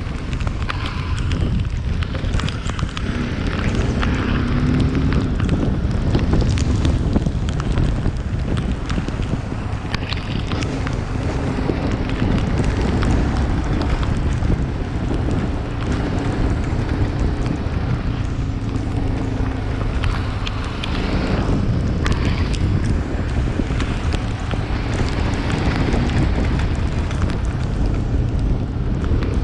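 Wind buffeting the microphone of a rider on the move, over a steady low rumble of road noise.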